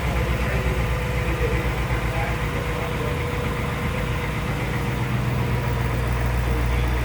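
A 2019 Ford Mustang Bullitt's 5.0-litre V8 idling steadily with a low, even rumble.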